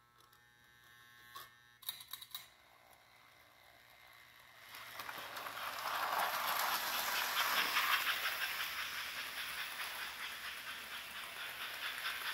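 American Flyer 346 0-8-0 model steam locomotive pulling a log car: a few sharp clicks in the first two seconds, then its running hiss with a fast, even pulse swells from about five seconds in and is loudest as it crosses the bridge.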